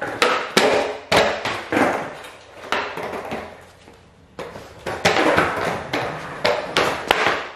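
Skateboards popped and landed in flat-ground tricks on a concrete garage floor: a string of sharp wooden cracks and clacks of deck and wheels hitting the concrete, echoing in the room, with a short lull a little past the middle.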